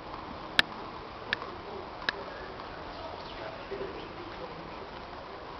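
Tennis ball bounced on a clay court before a serve, three sharp taps about three-quarters of a second apart in the first couple of seconds, over a faint steady background.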